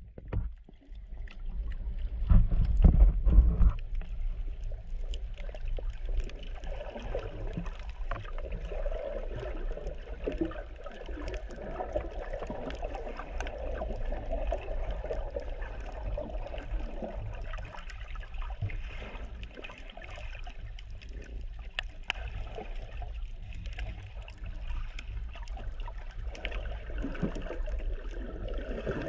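Muffled underwater sound picked up through a GoPro's sealed waterproof housing: a steady low rumble of water moving around the camera, with a louder burst of buffeting about two seconds in, and faint scattered clicks.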